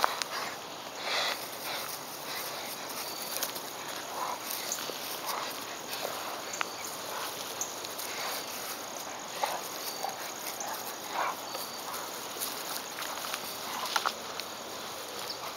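Two large dogs play-fighting over a toy on grass: paws scuffling and short, quiet dog noises now and then, with faint insects chirping behind.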